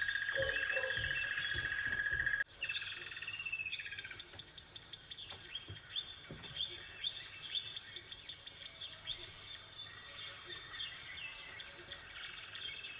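Small songbirds chirping: quick runs of short, high notes that each fall in pitch, repeated again and again. In the first couple of seconds a steady, rapid trill is heard, and it cuts off abruptly.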